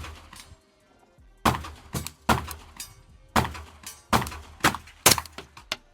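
A string of about nine suppressed 9mm shots, Winchester Super Suppressed 147-grain subsonic rounds through a HUXWRX titanium suppressor, fired at an uneven pace under a covered area. The suppressed subsonic shots are far less piercing on bare ears than the 115-grain rounds.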